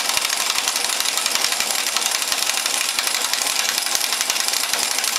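Impact wrench hammering rapidly as it runs a homemade all-thread puller down into a Polaris Sportsman 550's primary clutch; the puller has not yet bottomed out.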